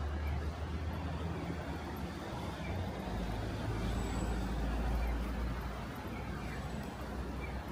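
Low steady rumble of road traffic and idling engines on a city street, beside a line of waiting taxis. The rumble swells from about three seconds in and eases after about six.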